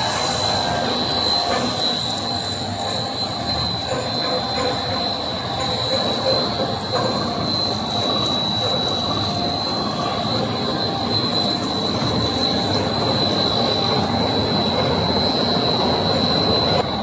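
Puff snack extrusion and core-filling line running: a steady mechanical din with a constant high-pitched whine over it.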